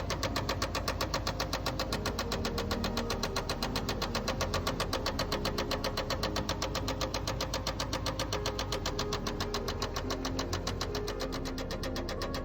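GMC engine running with a steady, rapid, even knock that sounds as if it comes from inside the engine but comes from a broken flywheel.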